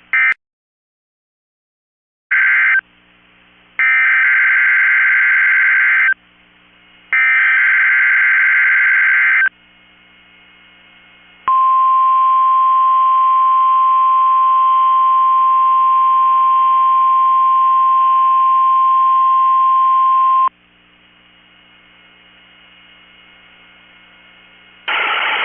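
NOAA Weather Radio Required Weekly Test tones. First come three bursts of SAME digital header data, a screechy warbling about a second apart. Then the steady 1050 Hz warning alarm tone holds for about nine seconds.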